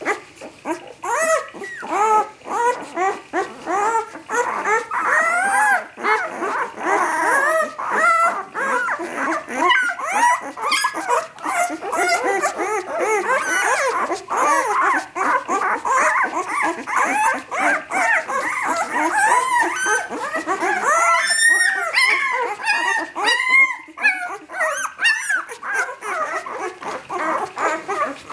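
A litter of ten-day-old puppies whimpering and squealing, many short rising-and-falling cries overlapping without a break.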